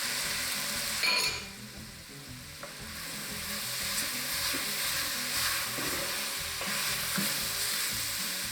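Chopped onions, peppers, celery, garlic and sausage sizzling in olive oil in a soup pot while being stirred. About a second in there is a brief louder burst, then the sizzle drops and builds back up, as cooked chicken is added to the pot.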